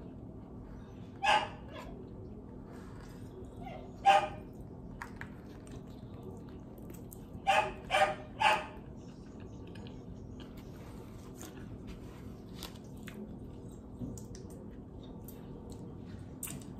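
A dog barking in short bursts: once about a second in, again around four seconds, then three quick barks in a row near the middle. The dog is barking because it wants to be let out to where its owner is.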